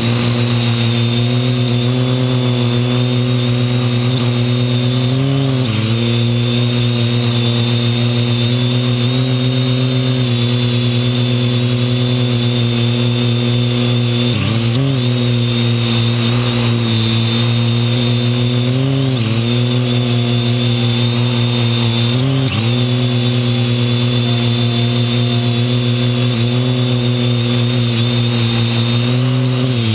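Parrot AR.Drone quadcopter's four motors and propellers running steadily in flight, heard from on board, with a steady high whine; the pitch dips briefly and recovers several times as the motor speed changes.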